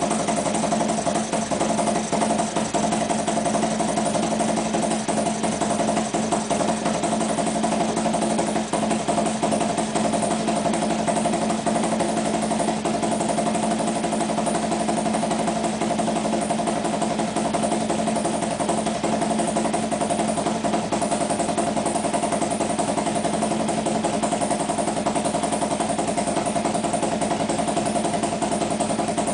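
Harley-Davidson motorcycle's V-twin engine idling steadily.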